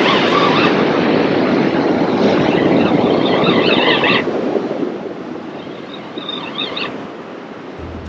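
Wind and breaking surf: a loud, even rush for about four seconds that then eases off to a lower level.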